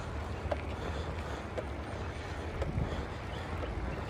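Steady low rumble of wind on the microphone and tyres rolling over a concrete street while moving, with a few faint clicks.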